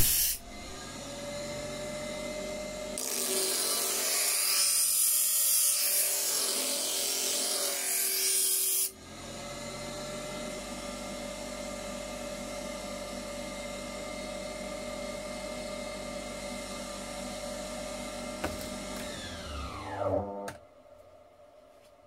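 Homemade workshop tool driven by a washing machine motor, running with a steady whine. From about three to nine seconds in there is a loud abrasive grinding as a workpiece is pressed against it. It then runs free until it is switched off about twenty seconds in and winds down with a quickly falling whine.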